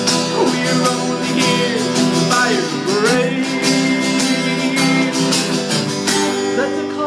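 Instrumental break of a song: strummed acoustic guitar with backing, and a lead melody line whose notes slide up and down in pitch around the middle.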